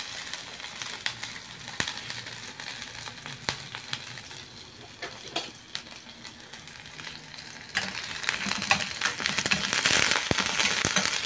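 Chopped garlic frying in hot oil in a pan, a steady sizzle with many small crackles: the first step of sautéing. About eight seconds in the sizzle grows louder and denser.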